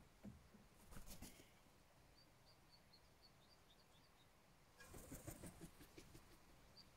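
Faint, quick series of high chirps from a small songbird. A hooded crow feeding from an enamel pan makes a few clicks about a second in, then a short flurry of flapping around five seconds in as it takes off.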